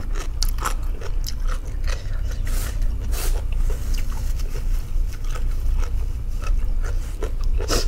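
Close-miked mouth sounds of chewing food: many small wet clicks and soft crunches. A paper tissue rustles a few seconds in.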